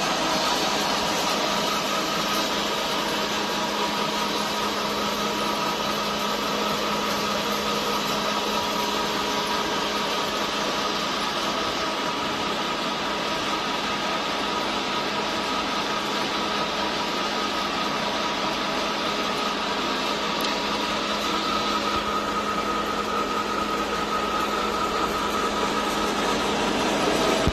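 Small flat-die feed pellet mill driven by an electric motor, running steadily under load as it presses corn and chopped green leaves into pellets. A steady hum sits under the machine noise.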